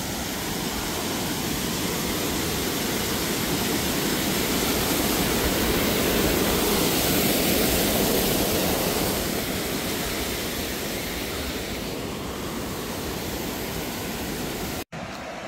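Rushing mountain creek water: a steady, full hiss that swells slightly in the middle, broken by a brief dropout near the end.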